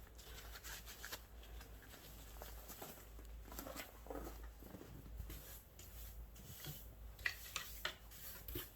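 Faint, irregular brushing and scraping as snow is cleared off a car by hand, with a few sharper clicks near the end.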